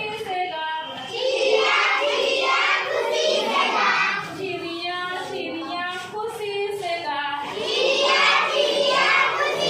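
Young children singing a Hindi rhyme together in a sing-song chant.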